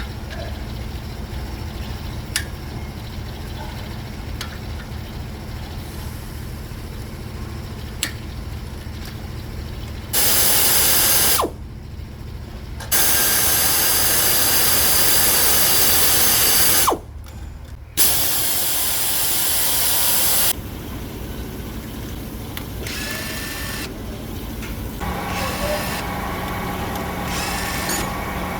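Workshop tool noise: a steady low hum, broken by three loud bursts of a power tool running, the longest about four seconds.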